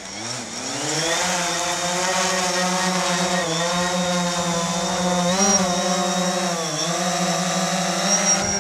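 A motor spinning up, rising in pitch over about a second, then running at a steady pitch with two brief wavers.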